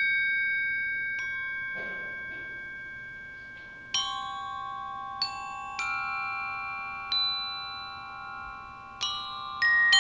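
Glockenspiel struck with mallets in a slow, sparse passage: single notes and chords a second or two apart, each left ringing long so they overlap.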